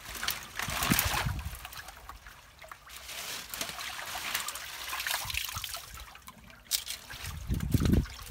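Muddy drain water splashing and sloshing as tangled branches are dragged through it by hand, over a steady trickle of water, with a couple of low bumps, one about a second in and one near the end.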